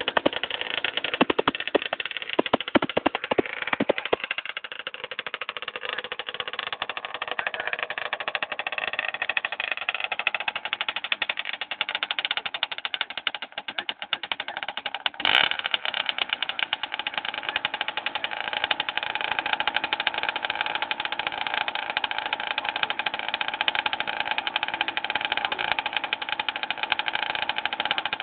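A vehicle engine running steadily, with rattling clicks over the first few seconds and a single sharp knock about halfway through.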